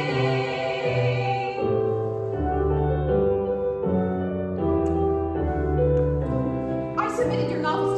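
Closing bars of a song: a held sung note with vibrato ends about two seconds in, and piano accompaniment carries on with slow, sustained chords.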